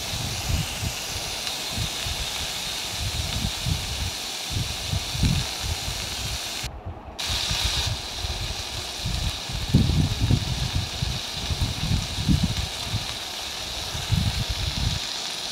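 Potato and pumpkin-peel strips sizzling in hot oil in an iron kadai: a steady frying hiss, with irregular low bumps and rustles. The hiss cuts out briefly about seven seconds in.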